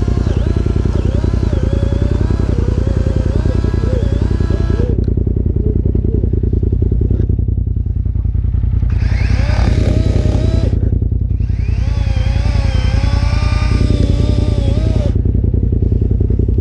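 Chainsaw cutting through a fallen tree, its pitch wavering as it bites under load. It drops back about five seconds in, then revs and cuts again twice, over a steady idling engine.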